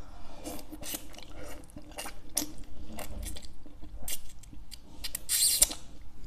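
Close-miked mouth sounds of someone eating ramen noodles: wet chewing and smacking clicks, with a short hissing slurp near the end.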